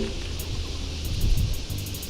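Outdoor wind noise with faint background music under it, and a short run of light clicks near the end.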